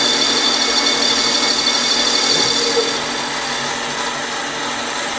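Mini lathe running, a steady machine whine with a high tone that fades about three seconds in.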